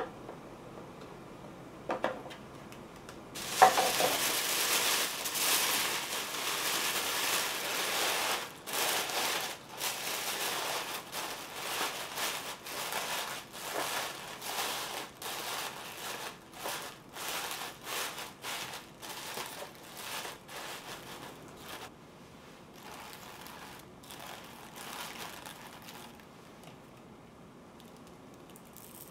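A couple of light clicks from a clear plastic box being handled, then thin white tissue paper crinkling and rustling as hands scrunch and press it into the box, dying down to softer rustles in the last several seconds.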